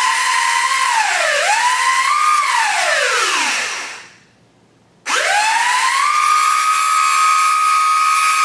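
Syma X8 quadcopter's brushed motors whining under throttle while overdriven on a 14.8 V 4S battery. The pitch dips and climbs, winds down to a stop about 4 seconds in, then about a second later spins straight back up to a steady high whine.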